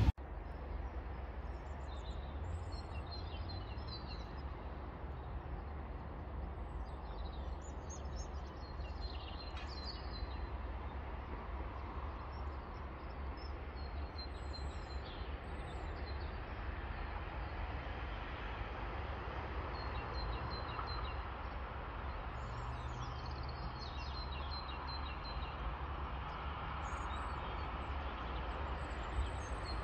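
Small birds chirping in short repeated high calls over a steady low outdoor rumble.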